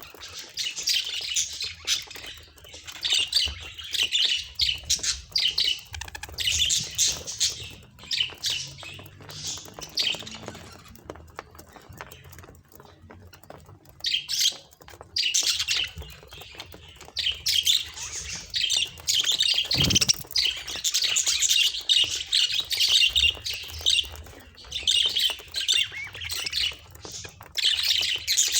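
Budgerigar chatter: rapid high calls in bursts, with a lull of a few seconds near the middle.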